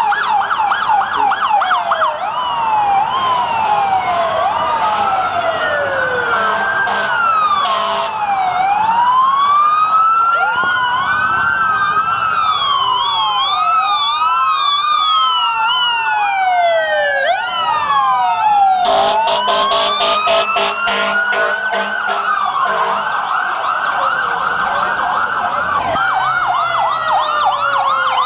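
Several emergency vehicle sirens, including fire apparatus, sounding at once and overlapping: slow rising-and-falling wails mixed with fast yelps, which quicken near the start and again near the end.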